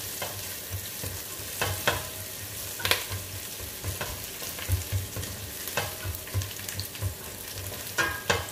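Sliced onions and garlic sizzling in hot oil in a stainless steel pot, with a spatula scraping and clicking against the pot as they are stirred; a few sharper knocks come about 2 and 3 seconds in and near the end.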